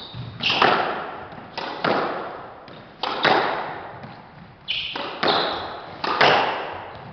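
Squash rally: the ball cracks off the racquets and the front wall in quick pairs, about five loud exchanges, each hit ringing with the court's echo. Shoes squeak briefly on the wooden floor a couple of times.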